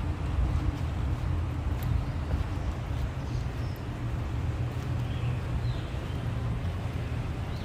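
Outdoor street ambience: a steady low rumble with a few faint, short high chirps a little past halfway.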